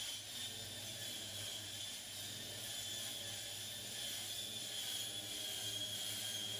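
Steady background hiss with a constant low hum and a thin, steady high-pitched whine; no distinct event stands out.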